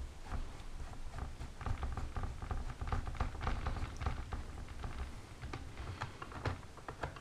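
Magnetic screwdriver turning a small screw out of the plastic base of a Dell Inspiron 1501 laptop: a stream of small irregular clicks and scrapes with low handling bumps.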